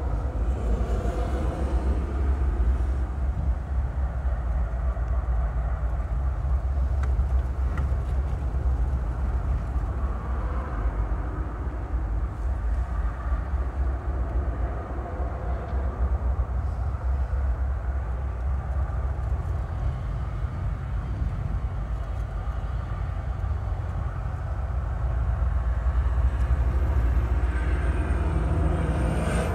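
CSX coal train rolling past: a steady rumble of the cars over the rails, swelling slightly near the end, when a faint high-pitched squeal comes in.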